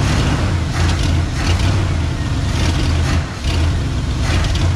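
1987 Ford F150's engine running on a newly fitted carburetor and HEI distributor, loud, with its low note pulsing unevenly. The owner doubts the carburetor is any good.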